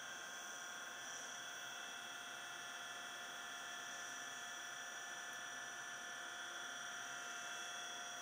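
JMC iHSV57-30-18 180 W AC servo motor with integrated driver spinning unloaded at 3000 RPM: a faint, steady whine made of several fixed tones. The noise is really low, as expected with no load on the motor.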